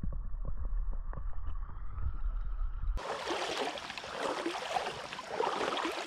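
Muffled underwater sound from a camera held submerged in a creek: a low rumble with soft knocks. About halfway through it switches abruptly to open-air splashing and sloshing close by, from wading in shallow creek water.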